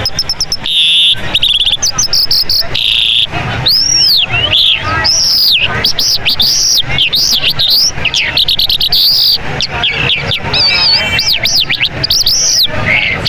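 Mashadi jal songbird singing: a long, varied run of clear whistled notes that arch up and down, mixed with buzzy and rattling notes.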